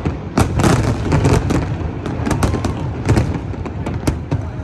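Fireworks display going off: many sharp bangs in quick, irregular succession.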